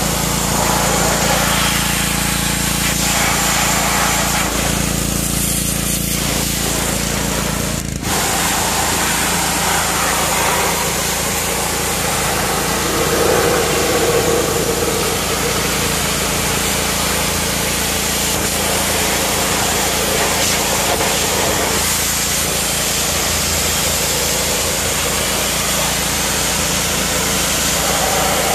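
Pressure washer running, its motor humming steadily under the hiss of the water jet hitting a car wheel and tyre. About eight seconds in the sound dips briefly and the hum changes.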